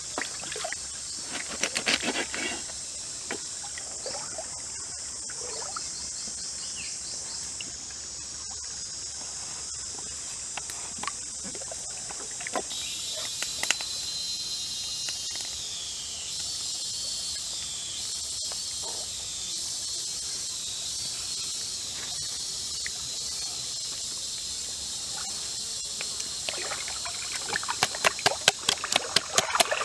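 Steady high insect chorus over a trickling stream. About two seconds in, a knife clicks against a wooden board while cutting a raw chicken. Near the end come quick, repeated wet slaps and squelches as marinade is rubbed into the chicken by hand.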